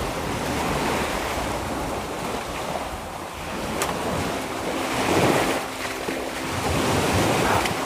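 Small sea waves washing up onto a sandy beach and drawing back, swelling and fading several times, with the loudest wash about five seconds in.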